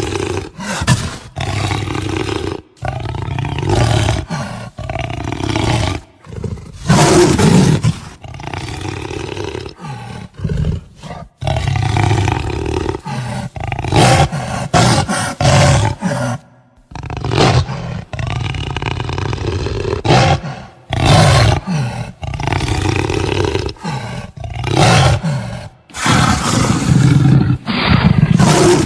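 Jaguar roaring and growling in a run of short, loud, rough calls, with sudden cuts between them.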